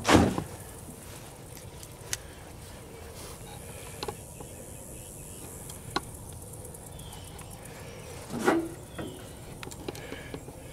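Sheet-metal RV power pedestal being handled and its front cover taken off: a short scrape at the start, a few faint clicks, and a louder metal clatter about eight and a half seconds in, over a steady high hiss of insects.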